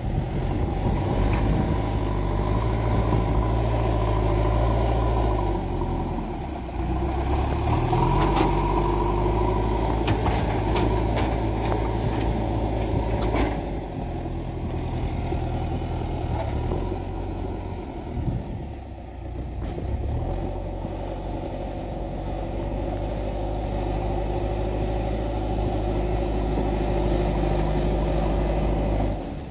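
JCB 3DX backhoe loader's diesel engine working under load as its front bucket pushes loose soil. The engine note dips and picks up again several times, with a few short knocks.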